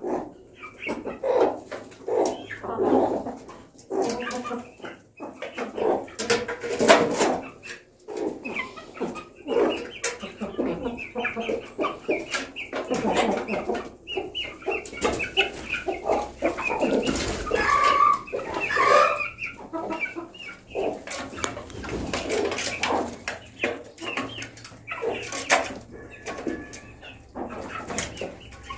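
Chickens clucking, a near-continuous run of short calls, with scattered sharp clicks.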